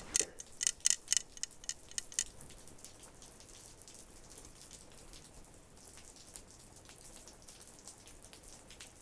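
A quick run of about eight light, sharp clicks with a slight ring, roughly four a second, stopping about two seconds in; after that only a faint hiss.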